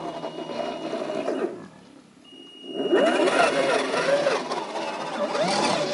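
Axial SCX10 II scale RC crawler's brushed electric motor and geartrain whining, the pitch rising and falling with the throttle. It drops away for about a second near the middle, then comes back louder and wavering as the truck climbs the loose dirt slope, with the tyres scrabbling.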